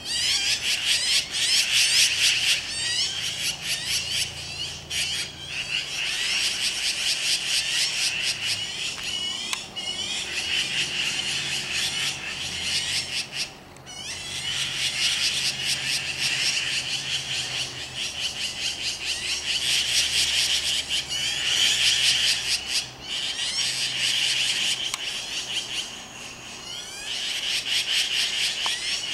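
A dense, continuous chorus of rapid, high chirping calls from many small animals, with short lulls about halfway through and again near the end.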